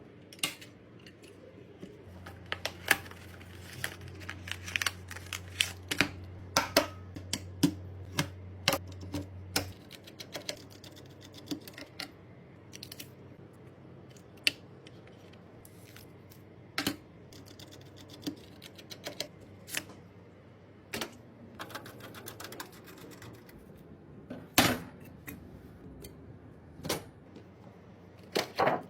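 Irregular sharp clicks and taps of computer parts being handled and fitted during a PC build, with a few louder knocks near the end. A low steady hum runs under the clicks for the first third.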